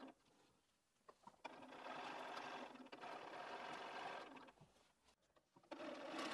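Bernina 570 QE sewing machine stitching binding in stop-start runs. It stops at the start, runs for about three seconds from a second and a half in, stops again, and starts up once more near the end, with a few light clicks in the pauses.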